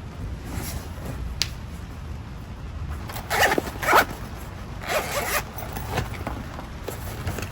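A zipper being pulled in a few quick rasping strokes, starting about three seconds in.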